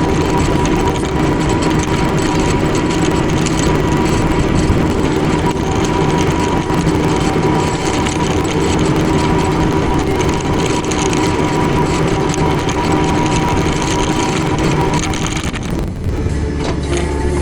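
Mini excavator's diesel engine running steadily as the machine travels; the engine note changes briefly near the end.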